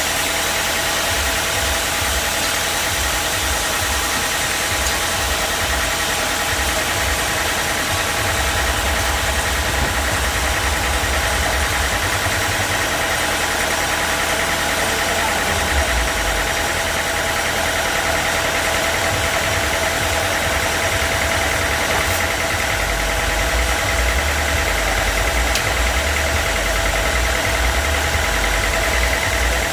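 Sawmill machinery running steadily: an engine-like drone with a constant whine over an uneven low rumble.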